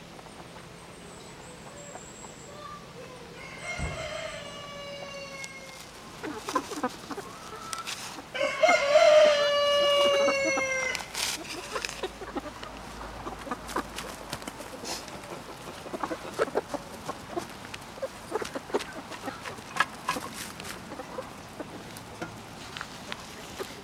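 A rooster crowing twice: a shorter crow about four seconds in and a louder, longer one around nine seconds. Short scattered taps follow as hens peck at grain on the ground, with one sharp knock just before the first crow.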